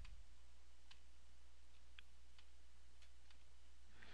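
Quiet room tone with a steady low hum and a handful of faint, irregularly spaced clicks.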